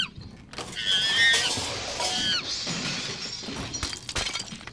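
Shrill animal screeches in a few short, falling cries as a comic sound effect, followed by crashing and breaking near the end.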